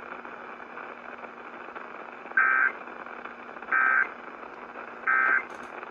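Emergency Alert System end-of-message signal: three identical short digital data bursts (SAME "NNNN" tones), about a second and a half apart, over steady radio hiss with a faint low hum.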